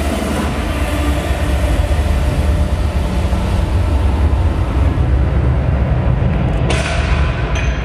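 Posing music over the hall's PA speakers, heard as a loud, deep, bass-heavy rumble with little melody. Brighter sound joins near the end.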